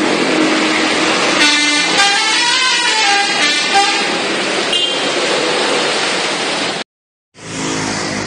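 Bus 'telolet' multi-tone musical air horn playing a short tune of changing notes for a couple of seconds, then a brief toot, over a running bus engine and road noise. The sound drops out briefly near the end, then vehicle noise returns.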